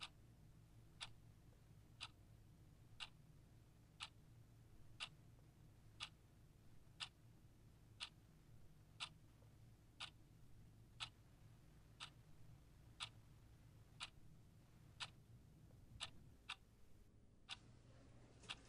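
A clock ticking steadily, one tick each second.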